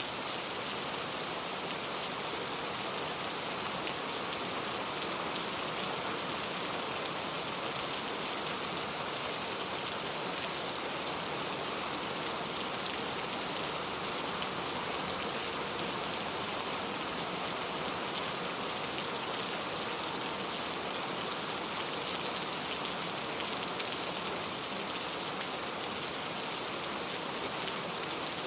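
Steady rain falling, an even hiss of many drops with no change in intensity.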